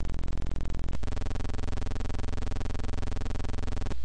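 Electronic synthesizer drone: a steady buzzing tone that shifts to a new pitch about a second in and cuts off just before the end.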